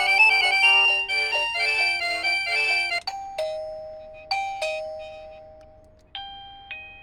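A wireless doorbell chime is being switched through its ringtones. First it plays a melodic ringtone tune, which cuts off about three seconds in. Then come three falling two-note ding-dong chimes, each dying away, the last with a brighter tone.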